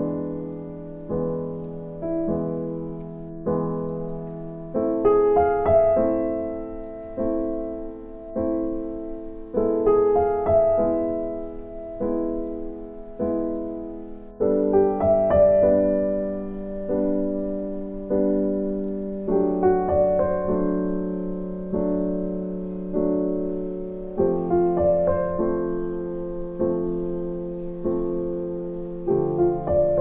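Background piano music: slow, even notes and chords, each struck and left to fade, with the harmony changing every few seconds.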